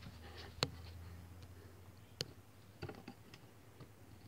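Quiet room with a few faint, sharp clicks, one about half a second in and another after about two seconds, followed by softer small knocks.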